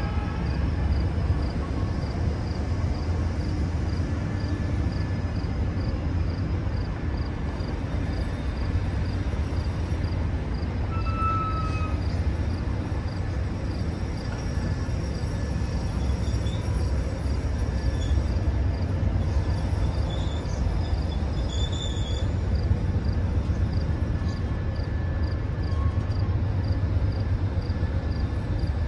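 Amtrak long-distance passenger train with Siemens ALC42 diesel locomotives rolling slowly past at low speed: a steady low rumble with a faint, regular high ticking above it.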